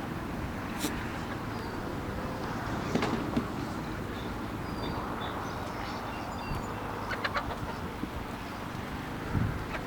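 Chickens peeping and clucking, with a few knocks and clatters over a steady rushing background.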